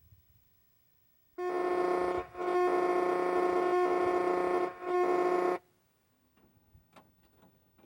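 Loud, steady buzzing drone from the end of a VHS tape played through a TV speaker at full volume: the tape's 'moaning' noise. It starts abruptly, dips twice for a moment, and cuts off suddenly after about four seconds.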